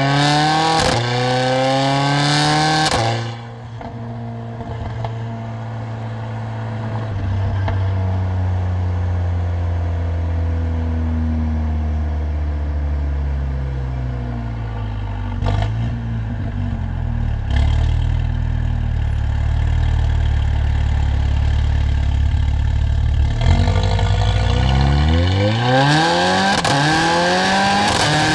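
Mercedes-AMG CLA45's turbocharged four-cylinder engine and exhaust accelerating: revs climb, then drop sharply about three seconds in, and the engine settles into a steady low drone at cruise. Two brief sharp sounds come midway through the cruise. Near the end it accelerates hard again, with revs rising, dipping at a quick upshift and climbing once more.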